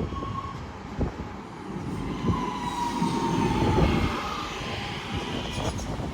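British Rail Class 323 electric multiple unit pulling into the platform and slowing, a whine that falls slightly in pitch over the low rumble of the wheels on the rails, with a few knocks.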